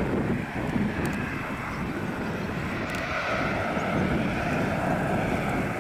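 Boeing 737-800's CFM56-7B jet engines running at low taxi power: a steady rumble with a steady whine on top.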